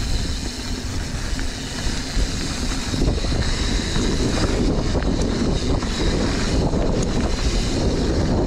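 Wind buffeting the microphone of a camera on a mountain bike riding down a dirt singletrack, over the rumble of the tyres on the dirt. It gets louder and rougher about three seconds in, with a few sharp clicks and knocks from the bike.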